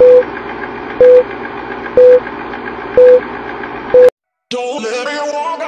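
Film-leader countdown sound effect: a steady film-projector whir with a short beep once a second, five beeps in all. It cuts off, and after a brief gap music starts near the end.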